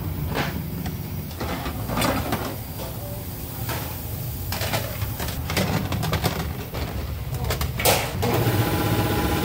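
Metal baking trays clanking and sliding on steel bakery racks, several separate knocks, over a steady low hum of bakery machinery. A steady mechanical whir joins near the end.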